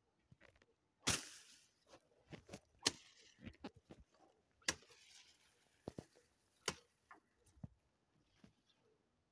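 Steel sword blade swung through leafy plants: a string of sharp, irregular swishes and leaf slaps. Two of the strikes are followed by a short rustle that dies away.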